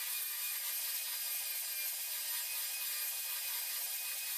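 Hand-held electric belt sander running steadily, sanding down the protruding edges of a wood strip glued onto MDF. A steady whir with a high hiss.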